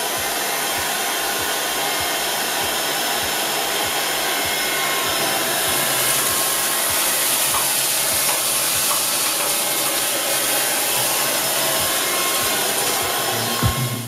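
Proscenic P10 Pro cordless stick vacuum running steadily at full suction: an even rush of motor and airflow noise.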